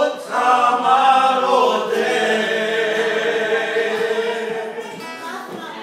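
A group of men singing a worship song together in harmony. About two seconds in they hold a long chord that slowly fades.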